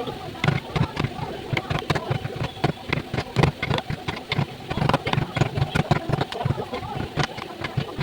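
Rapid, irregular knocking and tapping on wood, several sharp strikes a second, from wood being worked by hand.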